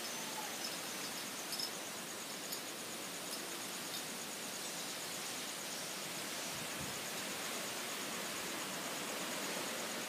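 Strong wind blowing through trees as a steady rustling hiss, with an insect's fast, high pulsing trill faintly above it.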